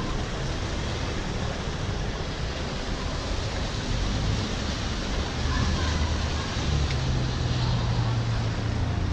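A steady rushing wash of water and wind noise over a flooded street, with a vehicle engine's low hum coming up in the last few seconds as cars move through the floodwater.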